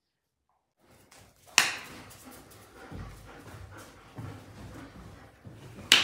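After about a second of silence, a German Shepherd and a Labrador scuffle and shift about on a bed. Two sharp, loud sounds stand out, one about a second and a half in and one near the end.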